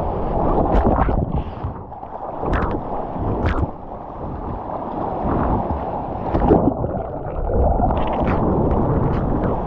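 Water rushing and splashing right at a surfboard-mounted action camera as the board moves through the water, with wind buffeting the microphone and a few sharp splashes.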